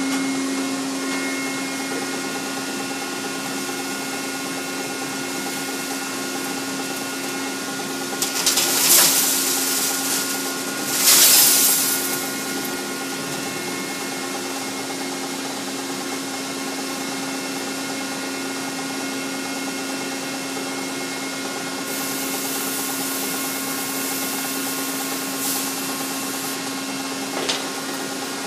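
Centrifugal finishing machine running with a steady hum. Two louder rushing surges come about nine and eleven seconds in.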